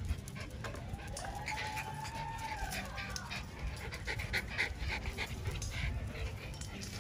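A Miniature Schnauzer puppy gnawing on a hard rubber chew bone: a run of small clicks and scrapes from teeth on the toy. About a second in comes a dog's long whine that rises and then falls.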